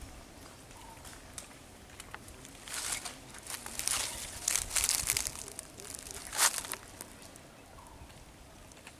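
Water splashing around an elephant in a lake, in several short rushing bursts about three to five seconds in, then a sharper, louder splash at about six and a half seconds.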